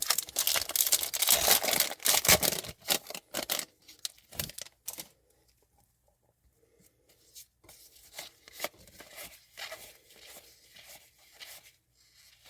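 Crinkling, tearing-like rustle of plastic and paper as trading cards are handled, loud for the first few seconds, then softer scattered handling noises and small clicks of cards being slid and stacked.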